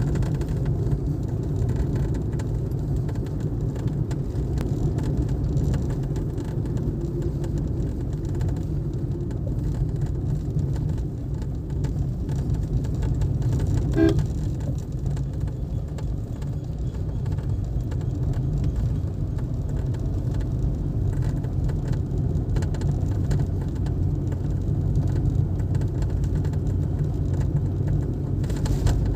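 Cabin noise of a 2021 Suzuki Swift petrol running, a steady low rumble, with a vibrating noise from the dashboard that the owner traces to the packing where the blower unit joins the dashboard. A short beep sounds about halfway through.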